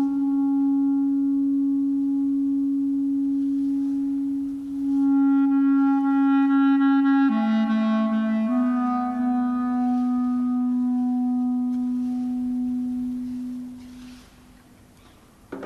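Solo clarinet improvising in long, slow held notes, each lasting several seconds; the pitch steps down about seven seconds in, and the last note fades out a little before the end.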